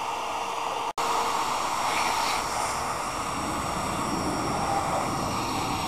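Shop vacuum running steadily, sucking through a narrow plastic tube fitted to its hose to clear loose debris out of holes in brick mortar joints. The sound cuts out for an instant about a second in.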